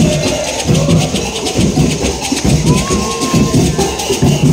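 Afoxé percussion band playing the ijexá rhythm on drums, shakers and bells, loud and continuous, with crowd voices mixed in.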